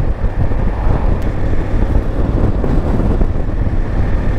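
Wind buffeting the microphone on a moving motorcycle in a strong crosswind, a steady low rumble mixed with the engine and road noise.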